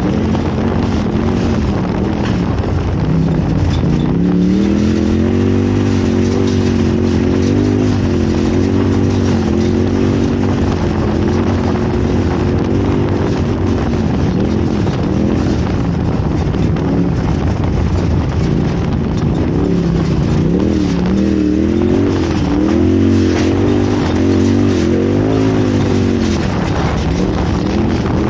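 Off-road race vehicle's engine running hard, heard from on board, its pitch rising and falling again and again with the throttle over a constant noisy rush.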